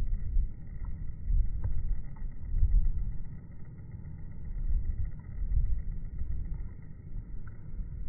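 Low, uneven outdoor background rumble that swells and fades every second or so, with a few faint ticks.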